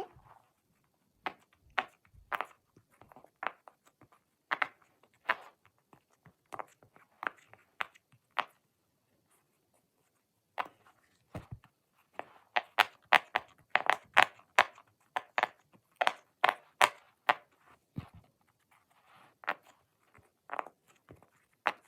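Round silicone pop-it fidget toy being pressed bubble by bubble: a string of short, sharp pops, spaced out at first, then a quicker run of pops in the second half.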